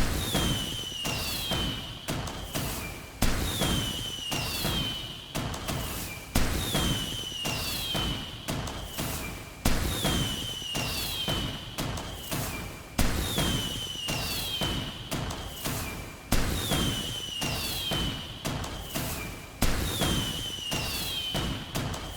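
Fireworks going off: a sharp bang about every three seconds, each followed by a falling whistle and crackling, repeating almost identically like a loop.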